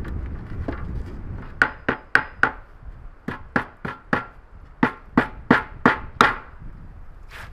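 Repeated sharp strikes on wood, about a dozen in three quick runs, starting about a second and a half in; a low rumble of wind on the microphone comes before them.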